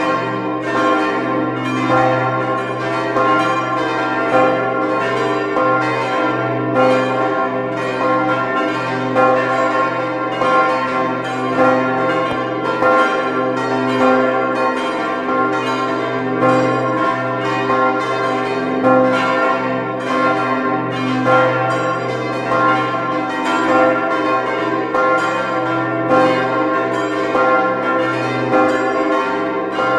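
Church bells of the Visp bell tower, several ringing together in a full peal, their strikes overlapping at a steady pace over a continuous deep hum.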